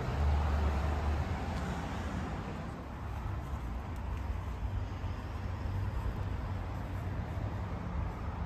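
Low rumble of street traffic, with a car passing and fading away within the first three seconds, then a steadier, quieter rumble.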